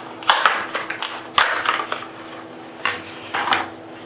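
Stiff plastic blister packaging crackling as it is pried open and the grip panels are taken out, in four or five short bursts.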